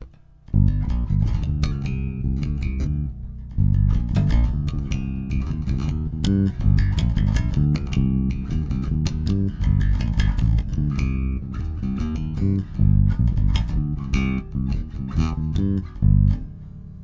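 Ibanez five-string active electric bass played through an amp: a busy run of plucked low notes starting about half a second in, with sharp pops and clicks on many notes. The player hears this popping as the strings buzzing on the frets, which he thinks needs higher string action.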